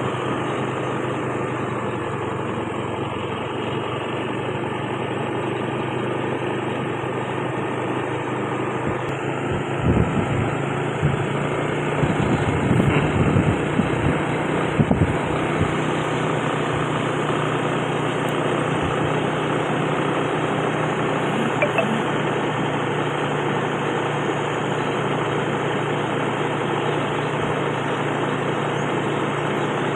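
Diesel engine of a Mitsubishi Canter dump truck running steadily as the truck is driven slowly along the road. A few brief low thumps come between about ten and fifteen seconds in.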